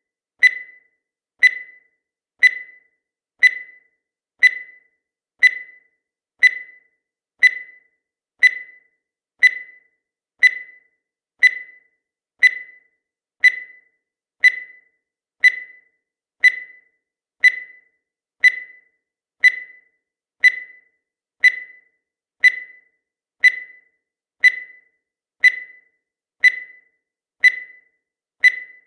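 Countdown timer sound effect: a short, sharp, high tick once every second, each one dying away quickly, in an even, unbroken rhythm.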